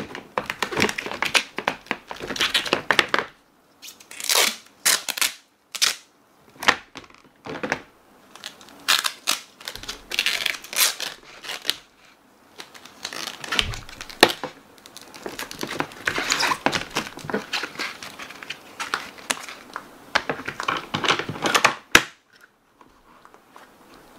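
Packing tape being worked onto the mesh-covered lid of a plastic storage box: bursts of ripping and crinkling from tape pulled and pressed down, in irregular spurts with short pauses. A few sharp clicks come from the plastic box being handled.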